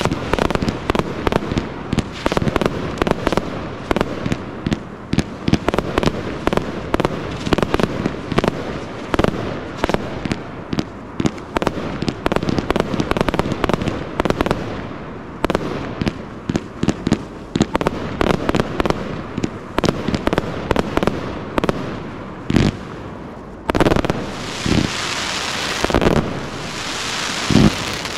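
Pyroworx Ku De Gras 262-shot 25 mm compound cake firing in a rapid barrage: a quick run of launch thumps and bursting bangs, several a second. For the last few seconds a dense hiss fills in between the bangs.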